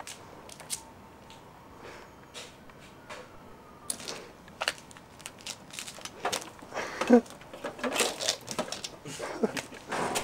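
Irregular clicks, knocks and clatter of things being handled and moved, busier in the second half, with brief indistinct voice sounds among them.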